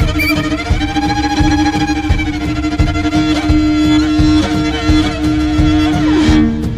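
Mongolian folk-rock music: a bowed horse-head fiddle (morin khuur) plays a wavering melody over a steady low drone and a regular drum beat. Near the end the melody glides down and the drone shifts lower.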